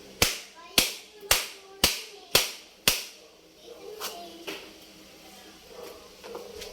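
Six sharp, evenly spaced impacts, about two a second, then faint voices in the background.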